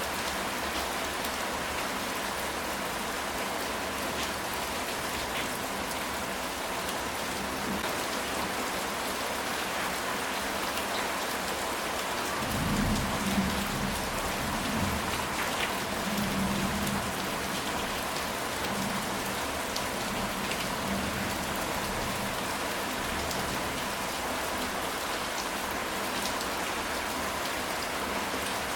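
Steady rain falling on a ceramic tile roof, with a low rumble of thunder a little under halfway through.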